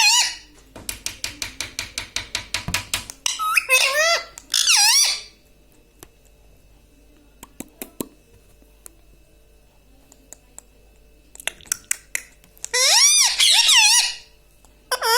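Indian ringneck parrot vocalising: a quick run of clicks at about five a second, then two high, wavering calls around four seconds in and a longer string of calls near the end.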